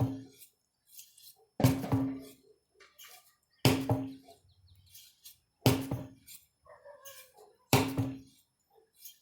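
A 25 lb sledgehammer striking in slow, even blows about two seconds apart: four heavy thuds, each with a short low ring.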